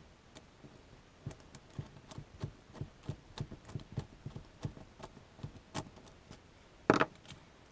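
Light metallic clicks, a few a second, from a Schlage-type lock cylinder being worked by hand as its detent is held down and the cap is turned off, with one louder knock near the end.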